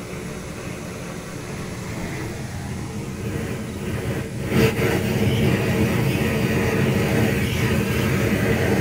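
Steady low rumble of a stump fire drawing air up through a steel-pipe burn barrel. About halfway through there is a short crack and the rumble grows louder.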